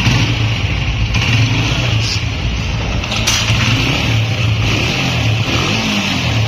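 Honda CG 125's air-cooled single-cylinder four-stroke engine idling steadily.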